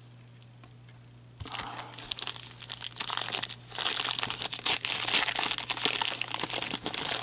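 Foil trading-card pack wrapper being torn open and crinkled by gloved hands, starting about a second and a half in and going on as a loud, dense crackle.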